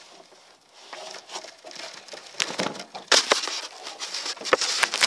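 Handling noise close to the microphone: a run of rustles, scrapes and sharp knocks, sparse at first and then dense and loud from about two seconds in, as a hand takes hold of the recording device.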